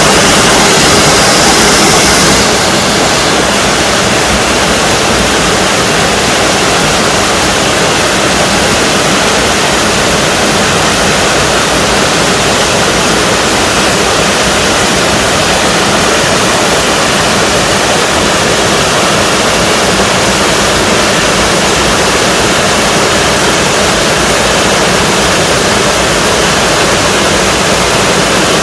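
Water pouring over a small waterfall in a mountain stream: a loud, steady rush. About two and a half seconds in the hiss turns a little duller and quieter.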